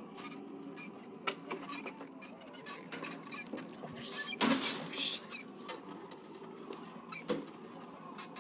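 Shopping cart rattling as it is pushed, with scattered clicks and a louder burst of clatter about four and a half seconds in.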